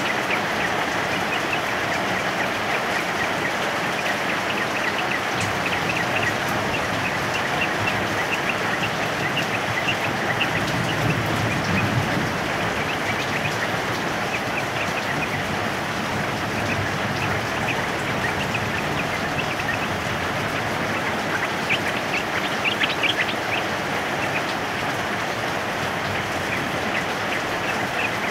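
Heavy rain falling steadily, with yellow-vented bulbuls (trucukan) chattering over it in quick, short chirps, a louder flurry of calls about three-quarters of the way through.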